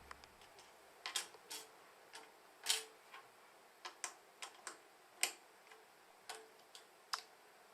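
Plastic LEGO pieces clicking and tapping as a small brick model is handled: a dozen or so faint, irregular sharp clicks, two louder ones about a third and two thirds of the way through.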